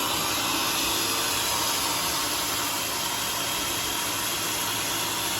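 Sawmill machinery running with a steady, even whirring hiss.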